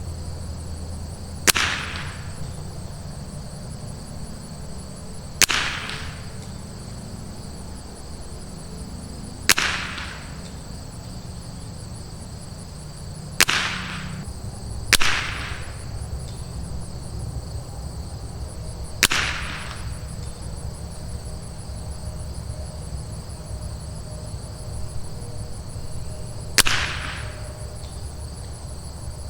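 Seven single .22 LR rifle shots from a Rim-X bolt-action rifle, each a sharp crack with a short decaying tail, fired one at a time several seconds apart, two of them in quick succession about midway. Insects drone steadily throughout.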